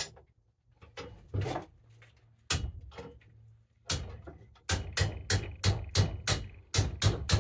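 Hammer blows on a bent steel ice auger piece to knock it straight. A few separate strikes come first, then a quick, even run of about three blows a second in the second half.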